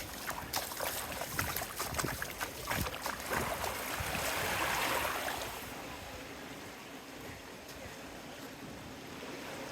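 Small waves washing onto a sandy beach, one wash swelling about four seconds in and then fading away.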